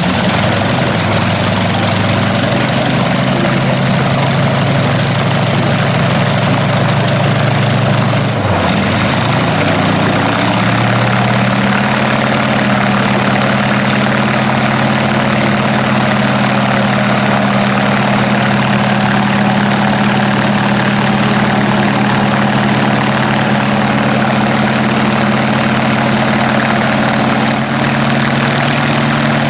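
Radial aircraft engine with propeller running on a test stand just after starting, a steady low multi-cylinder drone. About eight seconds in, the revs dip briefly and then pick up and settle at a slightly higher idle.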